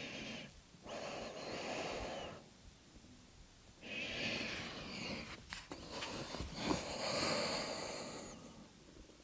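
A person breathing slowly and deeply, a few long audible breaths one to two seconds each with short pauses between. A few soft clicks and rustles of movement on the mat come a little past halfway.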